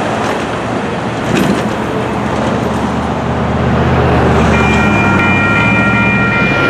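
Road traffic with a heavy engine hum, then Western-Cullen-Hayes electronic grade-crossing bells start ringing about four and a half seconds in as the crossing activates.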